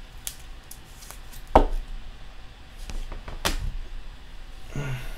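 Trading cards and a rigid plastic card holder being handled on a table: scattered light clicks and taps, with two louder knocks about one and a half and three and a half seconds in.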